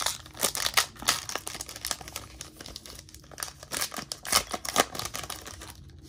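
Foil wrapper of an NBA Hoops trading-card pack being torn open and crinkled by hand: irregular sharp crackles in bursts, loudest near the start and again around four to five seconds in.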